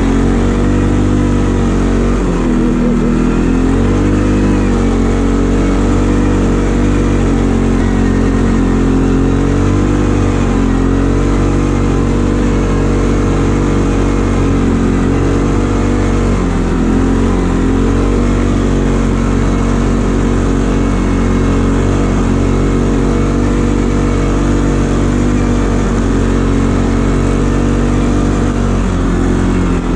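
Motor vehicle engine running steadily, its pitch dipping and rising again a few times as the throttle changes.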